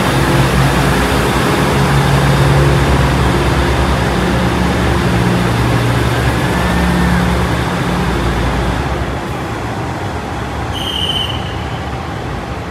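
Diesel train engine running with a steady low drone and rumble that fades away about nine seconds in. A short high beep sounds near the end.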